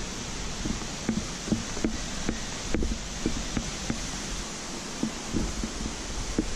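Steady rush of waterfall water, with irregular soft knocks.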